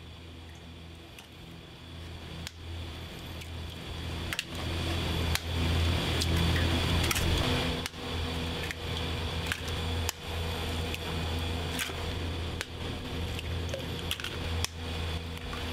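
Eggs being cracked one after another on the rim of a stainless steel pan, a sharp crack roughly once a second, over a steady low hum.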